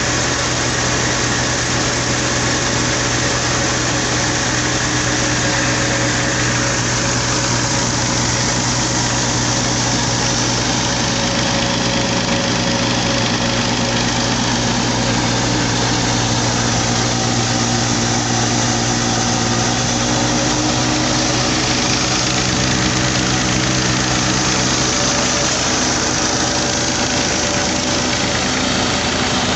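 Massey Ferguson 240 tractor's three-cylinder diesel engine running steadily at a fixed speed under load, driving a mini flour mill through its PTO shaft, a pulley and long flat belts, with the running belts and the mill's grinder mixed into the sound.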